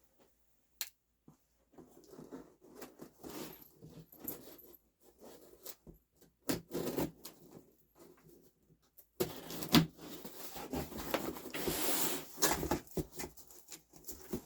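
A cardboard shipping box being handled and opened: irregular scrapes, rustles and knocks, with a longer, louder stretch of rustling and tearing about nine seconds in.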